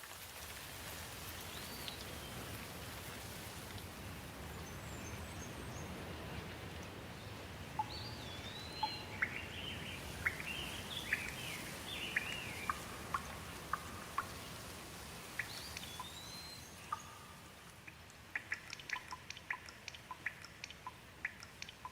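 Steady rain with birds calling over it: a short looping whistle early on, a run of quick sliding chirps through the middle, and another whistle later. Near the end the rain thins and a quick patter of separate drips takes over.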